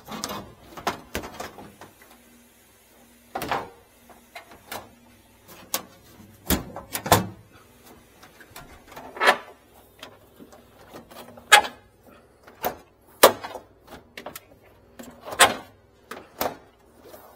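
Plastic interior trim and panels of a Sub-Zero 550 refrigerator being pressed and fitted back into place by hand: a string of irregular clicks and knocks, some sharp, some duller.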